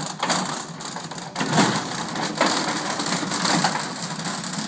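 Caster wheels of a loaded aluminum diamond-plate rolling rack rolling over concrete: a rough, continuous rolling noise with uneven clicks, louder from about a second and a half in.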